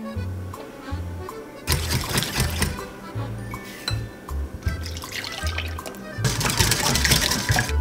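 Background music with a steady bass line. Under it, a wire whisk beats egg yolks and sugar in a glass bowl, and near the end milk is poured into the bowl as the whisking goes on.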